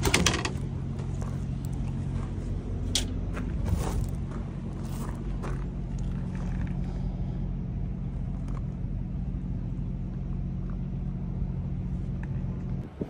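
Diesel engine idling steadily, with a few sharp metallic clicks in the first few seconds; the engine sound cuts off just before the end.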